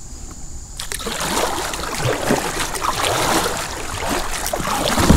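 A kayak coming ashore on a stony sandbar: water splashing and the hull scraping and crunching over stones, starting about a second in and going on as an uneven run of crackles and knocks.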